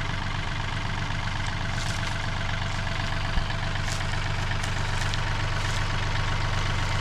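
Farm tractor engine running steadily, with one short knock about three and a half seconds in.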